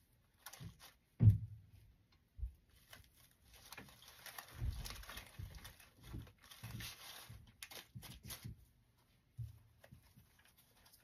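Rustling and crinkling of artificial flower stems and grapevine being handled as stems are pushed into a grapevine wreath, with several dull knocks, the loudest about a second in.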